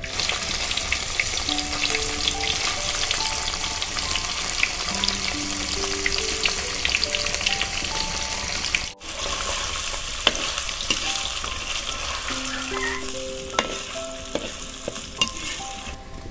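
Paneer cubes shallow-frying in hot oil in a kadai: a steady, dense sizzle with scattered sharp spits and pops. The sizzle breaks off for a moment about nine seconds in.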